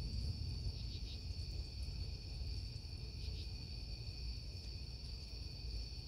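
Night chorus of crickets and other insects: a steady high-pitched trill with a fainter, lower band beneath it, over a steady low rumble.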